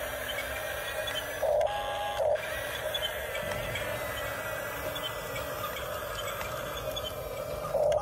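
Radio-controlled toy bulldozer's small electric drive motors and gears whirring steadily as it tracks and turns. About a second and a half in there is a brief louder sound with a steady tone, lasting under a second.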